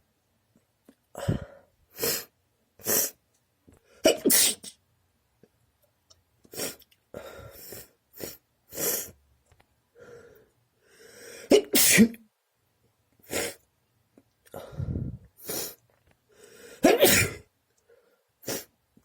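A person sneezing over and over: about fifteen short, sharp sneezes in a row, spaced roughly a second apart, some louder than others.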